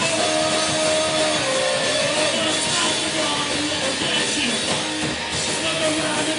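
Punk rock band playing live: distorted electric guitars over a drum kit, a dense, steady wall of sound with no vocal line.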